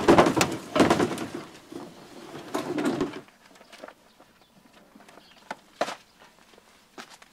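Plastic kayak hull scraping and rubbing as it is pushed onto a car's metal roof rack, stopping abruptly about three seconds in. A few sharp clicks of gear being handled follow.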